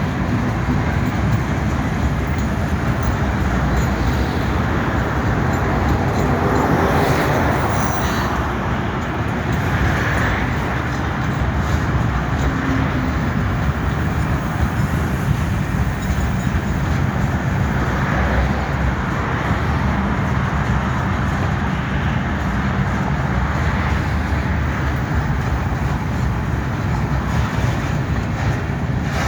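Freight train of loaded mining hopper cars rolling past, with steady, continuous wheel-on-rail noise.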